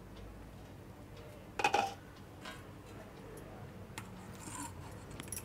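Glass pot lid lifted off a steel cooking pot, with one short clink about one and a half seconds in, followed by a few faint ticks and scrapes of a silicone spatula in the cooked rice.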